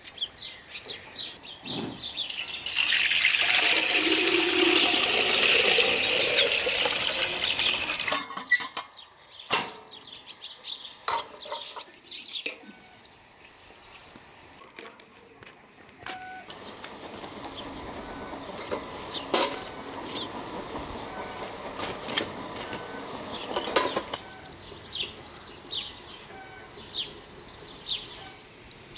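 Water running or pouring steadily for about five seconds, starting a few seconds in, then a few knocks and a quieter rush later on, with small birds chirping throughout.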